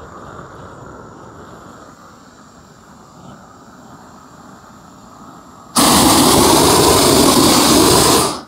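Propane torch on a 20-pound tank burning low with a steady hiss. About six seconds in it is opened up to a loud full jet of flame for about two and a half seconds, then shut off sharply.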